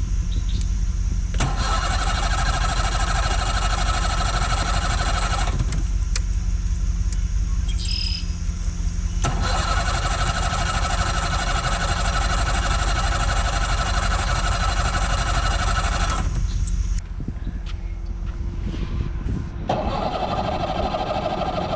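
Outboard boat motor cranked by its electric starter in two long attempts, about four seconds and then about seven seconds, each cutting off abruptly without the engine catching. A steady low rumble continues underneath.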